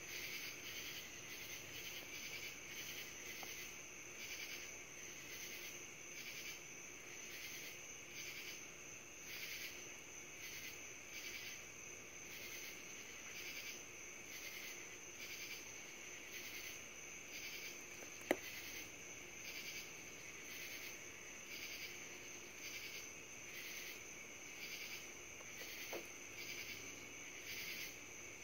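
Summer night insect chorus of crickets and katydids: a steady high trill with a second layer pulsing in a regular rhythm, about two pulses a second. A single sharp click stands out about two-thirds of the way through, with a fainter one near the end.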